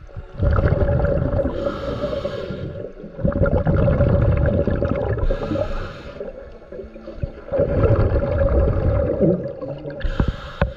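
Scuba diver breathing through a regulator underwater: about three long bubbling rushes of exhaled air, with a shorter, higher hiss from the regulator three times.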